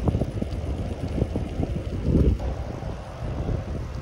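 Wind buffeting the microphone of a camera on a moving e-bike's handlebars, a low rumble with frequent small knocks and rattles from the ride, swelling briefly about two seconds in.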